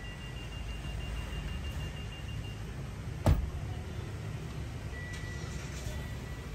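Steady low rumble of a vehicle on the move, with one sharp thump about three seconds in.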